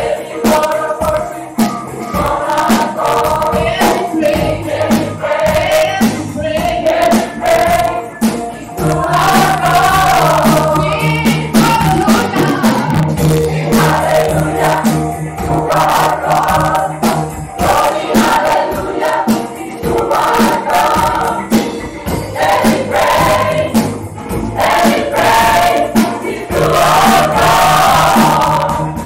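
Mixed-voice gospel choir singing with a live band: drum kit keeping a steady beat under the voices, with electric guitars and keyboard.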